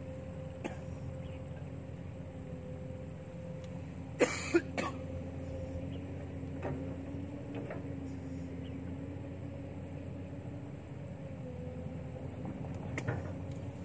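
A steady low mechanical drone over an outdoor rumble. About four seconds in comes a short double cough, the loudest sound, and faint clicks come and go.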